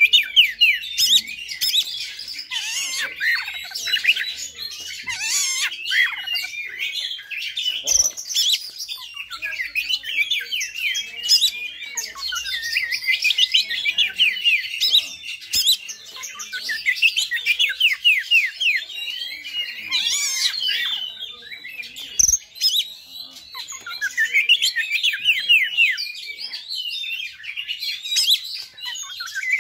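Oriental magpie-robin (kacer) singing a fast, dense run of high slurred and sweeping notes, near-continuous with brief pauses. A few sharp clicks break in.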